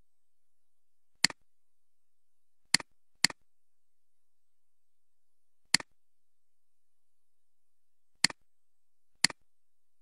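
Six sharp computer mouse clicks at irregular intervals, two of them about half a second apart, with near silence between them.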